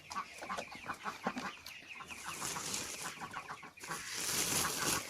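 Chickens clucking in quick short notes. A rustling hiss comes in twice, at about two seconds in and again near the end.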